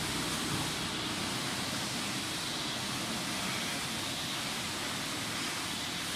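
Steady rushing background noise with no distinct events in it.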